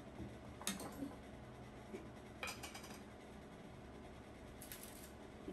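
Metal spoon clinking against a stainless steel mixing bowl, a few light clinks spread several seconds apart, with faint handling noise between.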